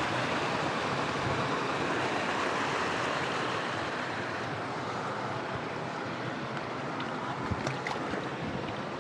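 Steady rush of water in a fast-flowing hill stream, with a few faint clicks near the end.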